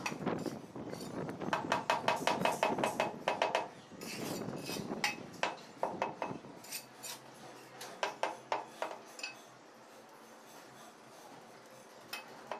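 Ceramic wall tiles clinking as they are tapped and worked with a trowel while being set in mortar: a quick run of ringing taps in the first few seconds, then scattered single clicks that thin out after about nine seconds.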